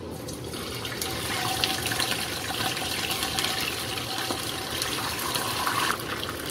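Pieces of fish dropped into hot cooking oil in a pan, sizzling and spattering with a dense hiss full of fine crackles. The sizzle starts about half a second in, builds as more fish goes in, and eases a little near the end.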